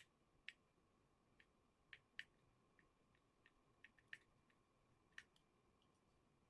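Near silence broken by faint, irregular small clicks and ticks, about a dozen of them.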